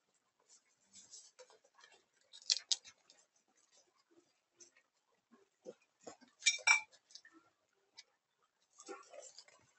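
Scattered short knocks and clicks as a group of donkeys jostle and drink at a water tub, with two louder clusters about two and a half seconds and six and a half seconds in.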